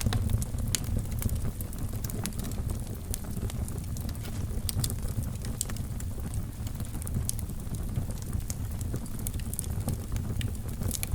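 Fire burning in a fireplace, crackling with frequent sharp pops and snaps scattered irregularly over a low, steady rumble of the flames.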